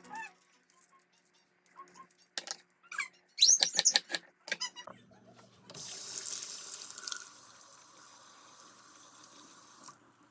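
A kitchen tap runs into a sink, starting about halfway through, gushing at first and then running steadily before shutting off near the end. Before it, a few knocks and a short burst of clinks, the loudest moment.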